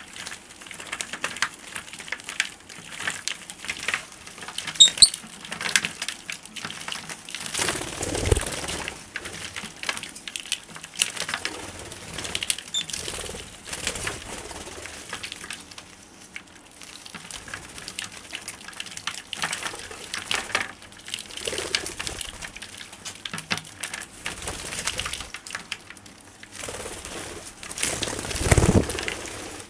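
Peach-faced lovebirds bathing in a shallow dish of water: wings flapping and water splashing in irregular flurries, with short high chirps now and then. The loudest flurries come about eight seconds in and again near the end.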